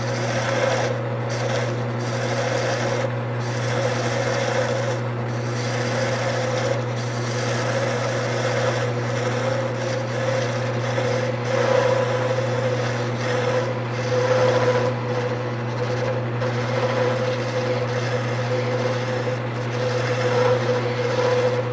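Wood lathe running with a steady motor hum while a small gouge cuts the spinning wood, a scraping hiss that swells and eases as the cut goes on.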